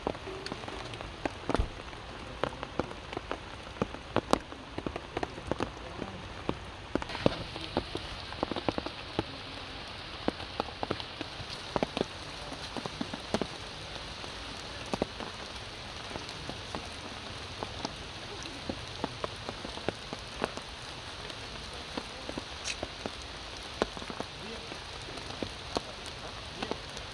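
Rain falling steadily on wet stone and leaves, a constant hiss dotted with many separate drops ticking down. The hiss grows brighter about seven seconds in.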